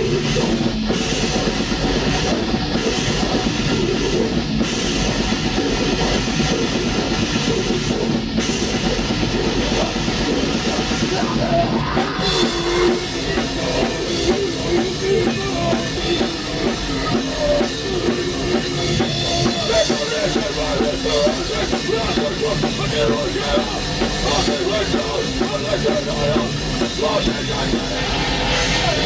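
A black metal band playing live at rehearsal, loud and dense, with the drum kit prominent. The playing shifts to a new section about twelve seconds in.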